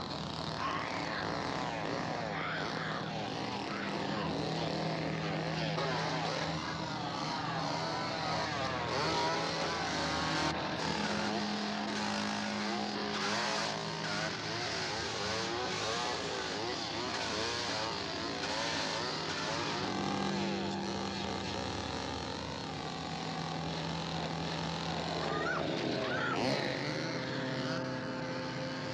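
An engine running, its pitch stepping up and down as it revs and settles.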